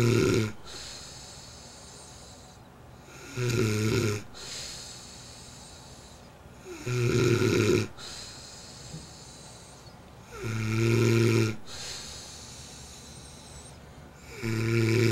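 A sleeping man snoring loudly and evenly. A rumbling snore about a second long comes roughly every three and a half seconds, each followed by a quieter breathy exhale.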